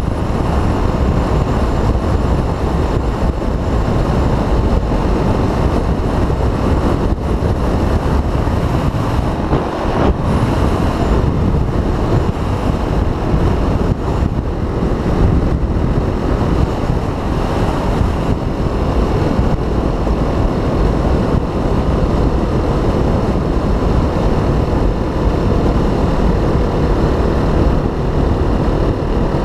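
Yamaha 250 dual-sport motorcycle at highway speed: a steady rush of wind over the microphone, with the single-cylinder engine running steadily underneath.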